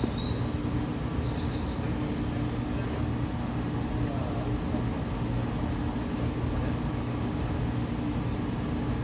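Seibu 2000 series electric commuter train running, heard from inside the car: a steady rumble of wheels on rail with a faint low hum.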